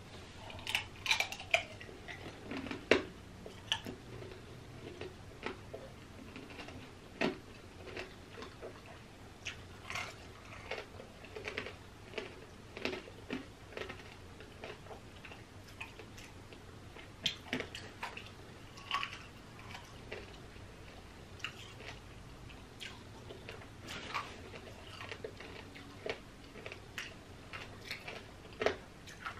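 Close-up chewing of a tanghulu candied strawberry: the hard candy shell crunches and cracks, with wet mouth-smacking sounds in many short, irregular bursts.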